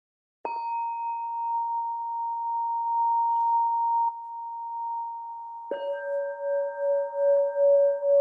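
Two singing bowls struck one after the other: a higher-pitched bowl struck about half a second in rings on steadily, then a lower-pitched bowl is struck near the six-second mark and rings over it, its tone pulsing in loudness about twice a second.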